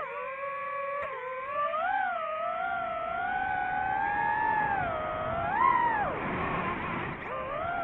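DJI FPV drone's motors and propellers whining, the pitch rising and falling with the throttle; it drops steeply about six seconds in and climbs back near the end.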